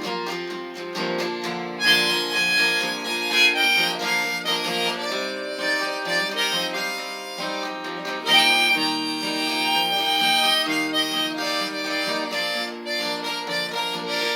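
Harmonica playing a solo over strummed acoustic guitar, an instrumental break in a folk-rock song. New harmonica phrases come in about two seconds in and again about eight seconds in.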